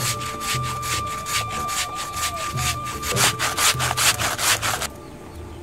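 Block of date-palm jaggery grated on a handheld metal grater: a rasping scrape repeated about four strokes a second, stopping near the end.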